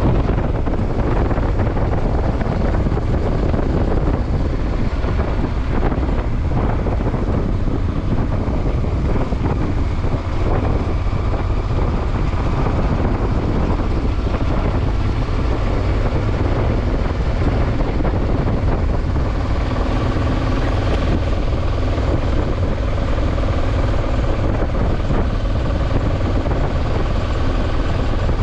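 Steady low rumble of a vehicle on the move, unbroken throughout.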